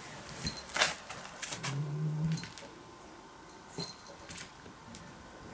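A cat playing with a live mouse on a wooden floor: sharp taps and scuffles of paws and the mouse on the boards, the loudest a little under a second in. A few short, high squeaks come through, and a short low hum sounds about two seconds in.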